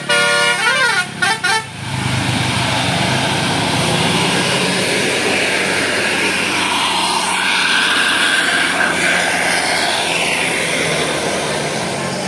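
A bus's Basuri telolet musical air horn plays a quick run of notes, sliding down and back up in pitch, and cuts off just under two seconds in. A loud, steady rush of noise follows, with faint sliding tones in the middle.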